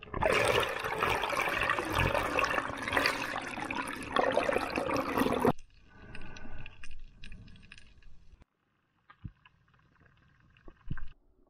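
Water rushing and bubbling over an underwater camera, loud for about five and a half seconds and then cutting off suddenly. Fainter underwater sound follows, with a few sharp clicks near the end.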